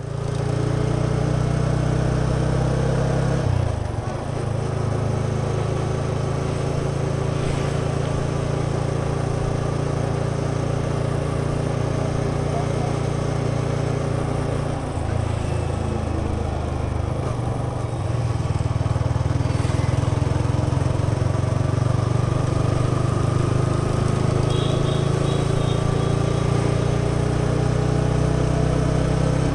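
Yamaha XSR 155's single-cylinder engine and exhaust running while the motorcycle is ridden. The engine note drops briefly and picks up again a few times, and it runs a little louder from about two-thirds of the way in.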